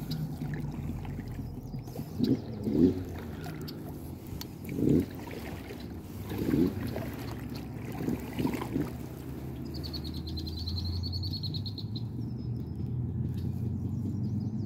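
Small two-stroke outboard motor running steadily at low speed. Several short louder knocks and splashes come between about two and nine seconds in, and a bird gives a high trill for about two seconds near the end.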